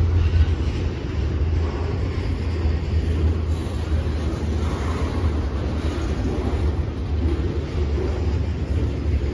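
Double-stack intermodal freight train rolling past, its loaded container well cars making a steady low rumble of wheels on rail.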